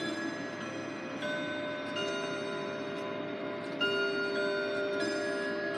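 Emperor grandfather clock's chimes ringing: several bell-like notes struck a second or so apart, each ringing on and overlapping the next. Faint ticking from the clock's movement runs underneath.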